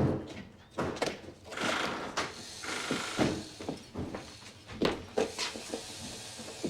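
Irregular knocks and thunks with mechanical clatter, several short hits spread through the stretch.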